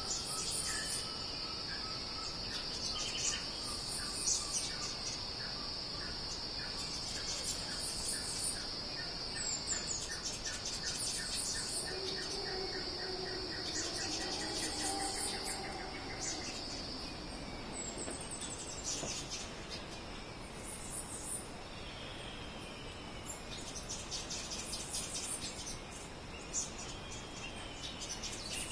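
Insect and bird ambience: a steady high insect drone that stops a little past halfway, a quick run of ticks, and scattered high bird chirps.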